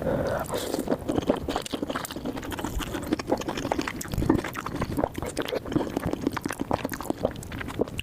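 Close-miked eating and drinking mouth sounds: wet slurping and smacking, with many small irregular clicks.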